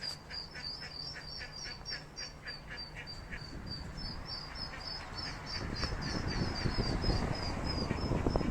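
Ducklings peeping, a steady stream of high squeaky calls several a second, with a rising rush of noise underneath from about halfway through.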